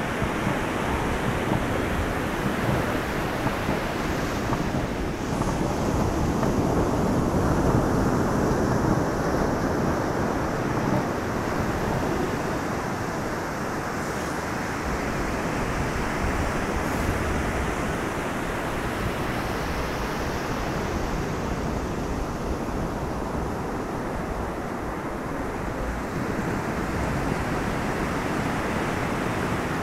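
Steady surf washing onto a sandy beach, with wind rumbling on the microphone.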